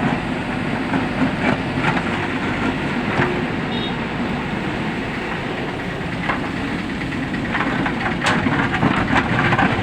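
JCB 3DX backhoe loader's diesel engine running steadily under load, with occasional short knocks and clanks from the working machine.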